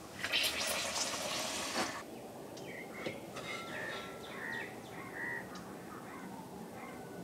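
Hot oil sizzling loudly in an iron kadai for a couple of seconds as a papad fries, then quieter, with a few short bird chirps.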